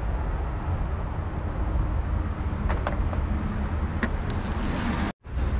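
A steady low rumble with a few light clicks and knocks of handling. The sound drops out completely for a moment near the end.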